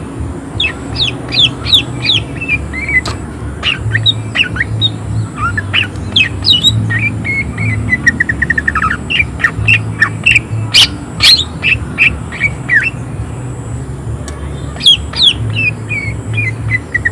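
Cucak ijo (green leafbird) singing a fast, dense string of sharp rising-and-falling notes, with a quick trill of rapidly repeated notes around the middle; a low hum runs underneath.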